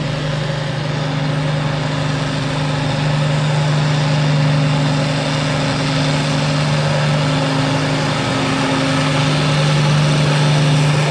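A farm-stock pulling tractor's diesel engine running at a steady, even pitch under heavy load as it drags a weight-transfer sled down the track.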